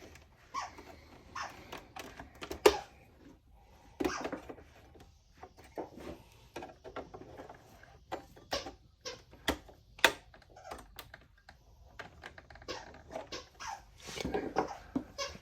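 Irregular light clicks and knocks of small plastic parts and a hand tool being handled, the loudest a sharp knock a few seconds in, with more around ten seconds in and near the end.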